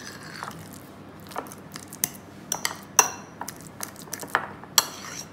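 A metal fork mashing and stirring avocado in a ceramic bowl, with irregular clinks and scrapes of the fork against the bowl, the sharpest about three seconds in.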